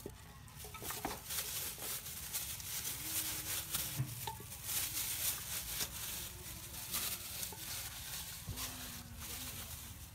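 A plastic-bag-gloved hand rubbing marinade into a raw whole chicken in an aluminium pot: a steady run of crinkly plastic rustles with wet rubbing and squishing of the meat.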